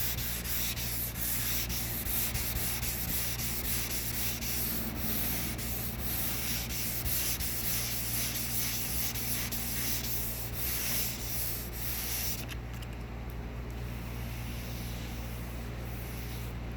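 Abrasive sanding of car body paint to take out deep key scratches: a rasping hiss that pulses irregularly with the strokes, then stops about twelve seconds in. A low steady hum carries on underneath.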